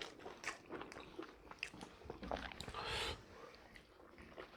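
A person chewing food close to the microphone: soft wet mouth clicks, with a louder bite or crunch about three seconds in.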